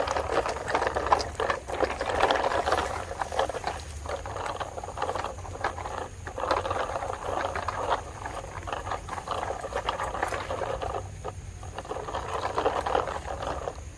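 Radio-controlled model excavator at work: an irregular clatter of small clicks and rustling noise that swells and fades every second or two, over a steady low hum.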